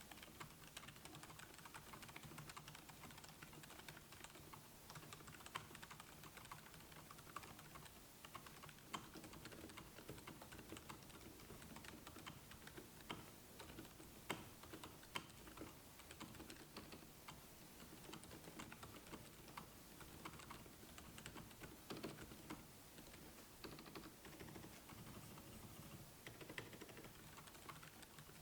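Typing on a Monstargears NINJA87BT mechanical keyboard, a top/gasket-style plate-mounted board with C3 screw-in stabilizers: a steady stream of faint keystrokes with occasional louder strokes.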